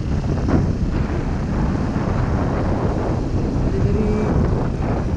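Suzuki Gixxer 155's single-cylinder engine running at a steady, moderate road speed, mixed with wind buffeting on the microphone.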